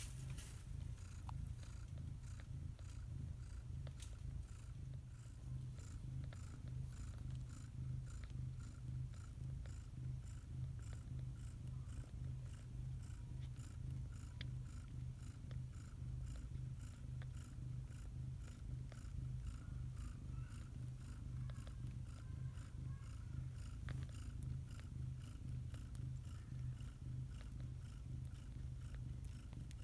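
Mother cat purring steadily while her newborn kittens nurse at her belly, a low, even rumble that pulses without a break.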